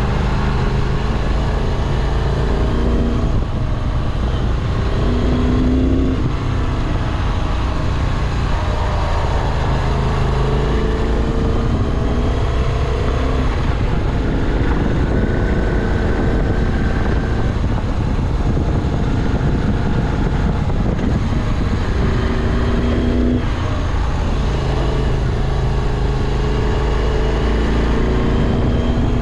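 Moto Guzzi V7 Classic's air-cooled transverse V-twin, heard from the bike while riding. The engine note repeatedly climbs and drops as the bike is throttled and shifted through the gears.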